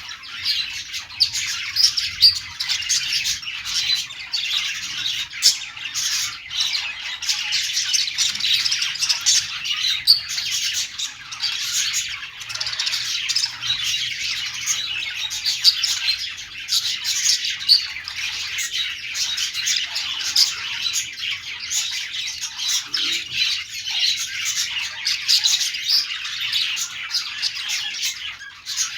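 Budgerigars chattering and chirping without pause, many short squawks and chirps overlapping.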